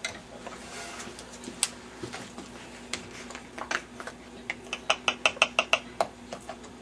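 Light clicks and taps of small objects being handled on a kitchen countertop. About two-thirds of the way through comes a quick run of about eight taps.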